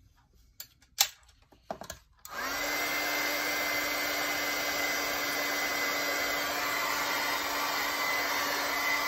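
A few sharp knocks in the first two seconds, the loudest about a second in. Then a handheld craft heat tool switches on, spinning up quickly, and runs with a steady blowing whir and a faint high whine while it dries wet watercolour paint.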